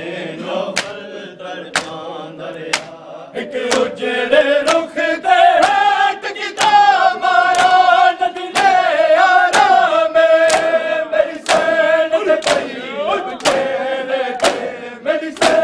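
A group of men chanting a noha (Shia mourning lament) in unison. It is accompanied by rhythmic matam, hands slapping on chests together, about once a second.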